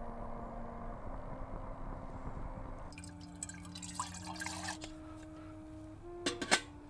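Water poured from a plastic bottle into a small metal camping kettle, splashing and gurgling for a couple of seconds. Near the end come a few sharp metal clinks, the loudest sound, as the kettle is set onto the spirit-burner stove. Soft background music with sustained keyboard notes plays throughout.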